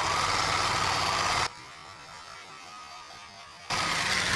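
Small electric motor of a cheap toy RC car running with a steady buzz. It cuts off abruptly after about a second and a half and starts again near the end.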